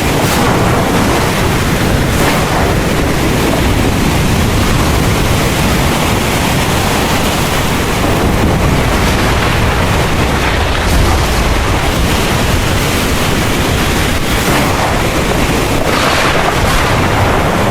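Heavy rain pouring steadily, a loud even hiss with a deep rumble underneath.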